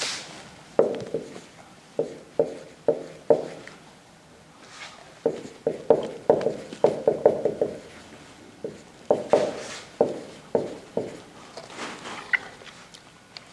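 Marker writing on a whiteboard: quick short strokes in three runs, with brief pauses between them.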